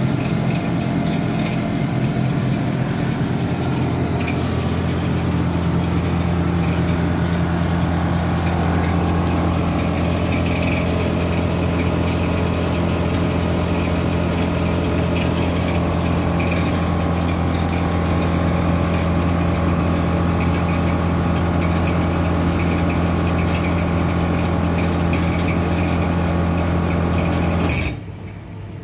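Atlas Copco SF6 FF oil-free scroll air compressor running with a steady hum and hiss. Near the end it shuts off at the end of its cycle, and the sound drops sharply to a quieter leftover hum.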